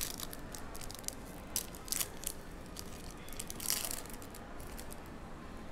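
Foil trading-card pack wrapper being torn open and crinkled, in irregular sharp crackles: a few at the start, a pair about two seconds in, and a longer crinkle just before four seconds.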